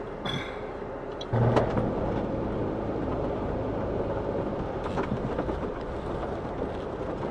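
Jeep Wrangler driving over a snowy dirt track: steady engine and tyre rumble with a few light knocks. It gets louder about a second in and stays steady.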